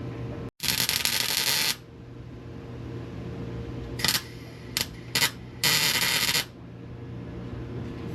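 Welder arcing in short bursts as exhaust pipes are tack-welded: a burst of about a second near the start, three quick blips around four to five seconds in, then another burst of nearly a second. A steady low hum runs underneath.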